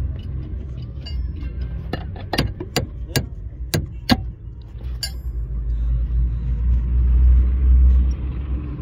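About six sharp knocks a few tenths of a second apart, followed by one more, during work fitting a car's steering universal joint onto its splined shaft. Under them is a steady low rumble that grows louder near the end.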